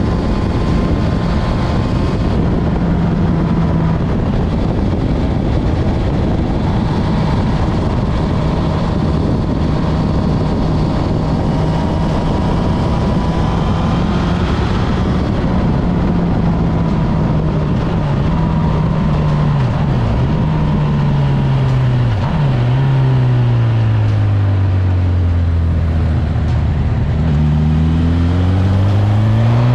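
Honda CB1000R inline-four running through a G&G aftermarket exhaust with the baffle in, the bike cruising at steady revs. Past the middle the engine note falls away as the bike slows, with two brief dips. Near the end the revs climb again as it accelerates.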